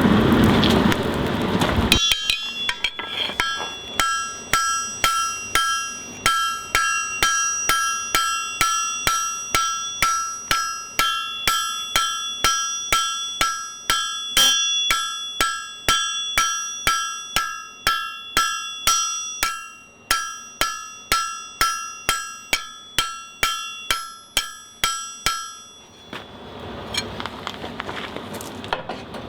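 Hand hammer striking hot steel on an anvil, a steady run of ringing blows at about two a second as the bar end is forged. The hammering starts about two seconds in and stops near the end, with a steady rushing noise before and after it.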